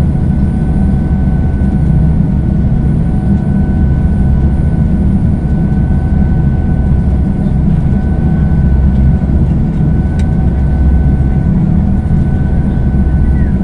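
A ferry's engines running steadily under way, a loud, even low rumble with a faint steady whine above it.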